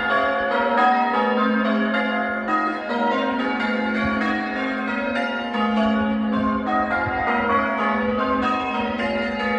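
Church tower bells being rung in changes, English full-circle change ringing: an even, unbroken stream of overlapping bell strikes, each one ringing on into the next.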